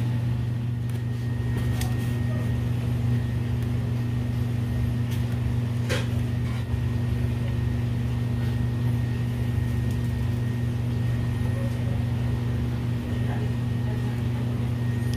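Steady low mechanical hum of a running machine, even in pitch and level throughout, with one sharp click about six seconds in.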